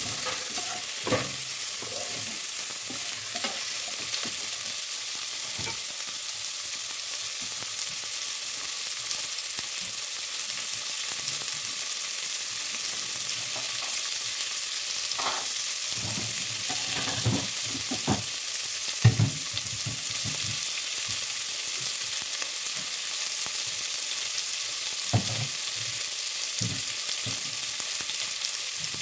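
Chicken feet sautéing with ginger and onion in a metal pot: a steady frying sizzle, with a few scattered knocks, the loudest about nineteen seconds in.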